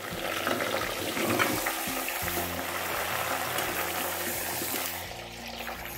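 Masala-stuffed brinjals sizzling as they go into hot oil with browned onions in an aluminium pot, then being stirred with a spoon. The sizzle eases off about five seconds in.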